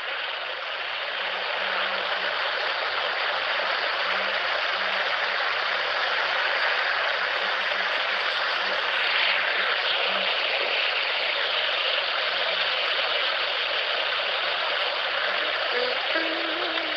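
Steady rushing noise of water at a river dam, mixed with wind, as picked up by a handheld recorder.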